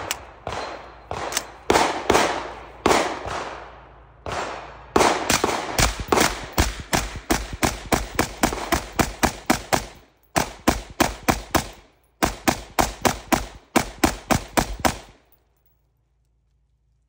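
Suppressed 5.56 AR-15-style rifle firing through a Huxwrx Flow 556K suppressor. A few single shots come about a second apart, then three quick strings of about four shots a second with short breaks between them. The firing stops about fifteen seconds in.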